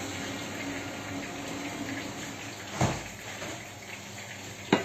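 Aubergine chunks frying in hot oil in a pan, giving a steady sizzle. Two short knocks come over it, one near the middle and one near the end.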